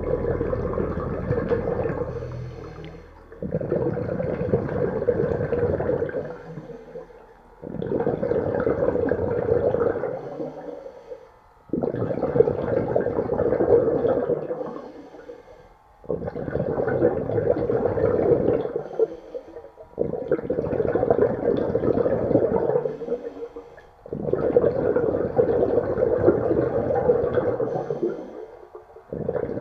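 A diver breathing underwater through a regulator fed by a homemade 12-volt aerator air line: a rush of bubbles and air with each breath, about every four seconds, each starting suddenly and fading out.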